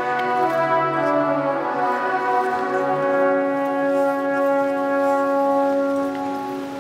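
Pipe organ playing sustained chords that shift in the first few seconds, then one long held chord that fades near the end.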